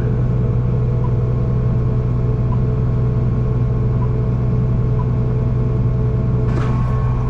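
Tractor engine running at a steady speed, a constant low drone.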